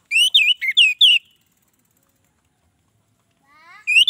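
Orange-headed thrush (anis merah) singing: a quick phrase of about six loud whistled notes, each sweeping up and down in pitch. After a pause of about two seconds a second phrase starts with soft rising notes and turns loud again near the end.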